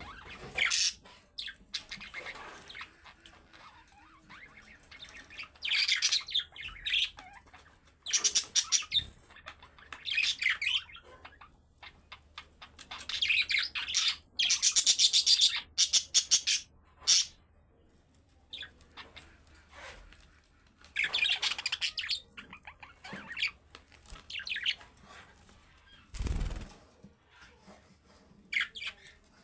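Budgerigars chirping and chattering in bouts of rapid high warbling, with short pauses between bouts. A brief low thud comes near the end.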